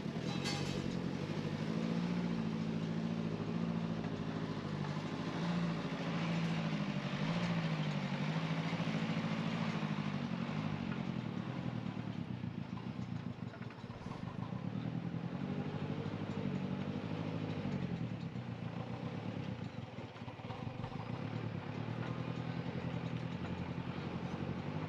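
Diesel engine of heavy earthmoving machinery running and working, its pitch rising and falling every few seconds.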